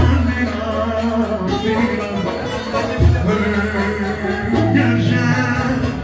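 Live Turkish band music played loud through a club PA system, a singer's voice over a sustained bass line.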